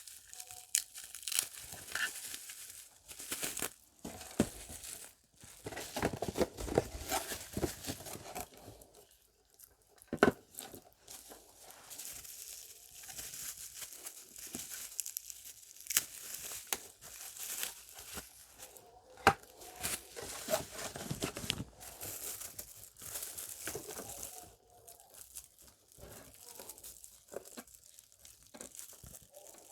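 Packing paper and wrapping crinkling and tearing as speakers are unpacked from their boxes, with scattered sharp knocks and clicks of the boxes being handled.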